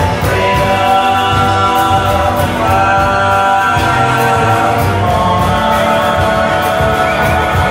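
Live country band playing, with several voices singing long held notes in harmony over guitar, upright bass and drums.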